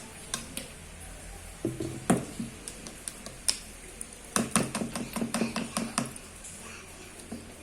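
A spoon stirring slime mixture in a container, knocking against its sides: a few separate clinks, then a quick run of about a dozen taps past the middle.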